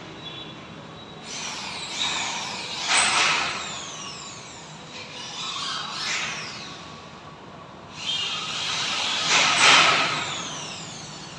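Galvanised steel false-ceiling channels scraping and rattling as they are handled and fitted overhead, in three bursts, the last the loudest.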